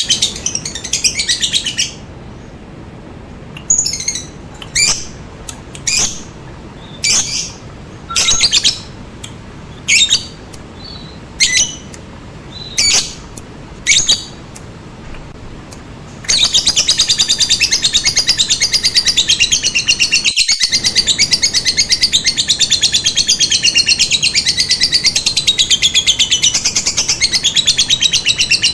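Lovebird calling: a burst of chatter, then short sharp chirps about once a second, then about halfway through a long unbroken run of rapid, high chattering, the long 'ngekek' that keepers play to get their lovebirds answering.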